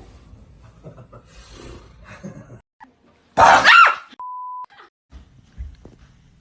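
A person lets out a loud, startled yell a little past halfway through, followed at once by a short steady beep: a censor bleep cutting out a word.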